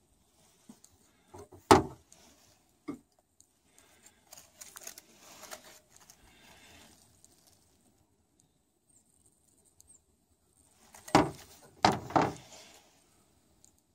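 Handling noises from a small quadcopter drone being picked up and set back down on a car's bonnet. There is a sharp knock early, soft rustling while it is held, then a few loud knocks near the end as it is put down.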